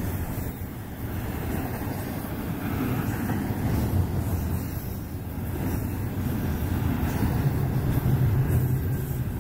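Double-stack intermodal train's well cars rolling past at speed: a steady rumble of steel wheels on the rails, swelling slightly near the end.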